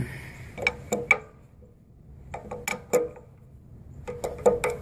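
Sharp metallic clicks in three short clusters as the oil drain nut on the bottom of a Cat pressure-washer pump is tightened snug.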